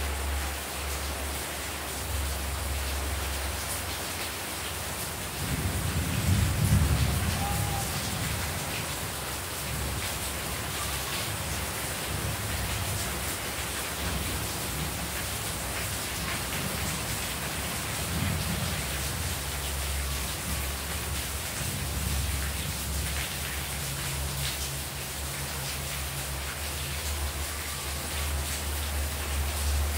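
Heavy rain falling steadily on a courtyard and potted plants, with water spilling off the roof edge. A low rumble swells briefly about six seconds in.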